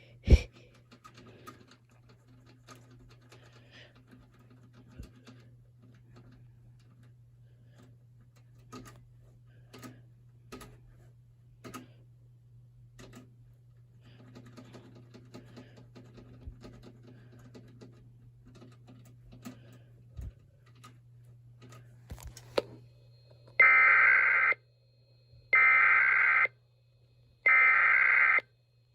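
Scattered soft computer keyboard clicks over a low steady hum, then near the end three loud one-second bursts of EAS SAME header data: the screeching digital tones that open an Emergency Alert System message.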